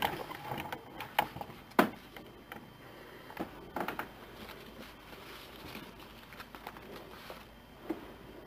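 A few faint, scattered clicks and taps over a low background hum, the clearest a little under two seconds in and around four seconds in.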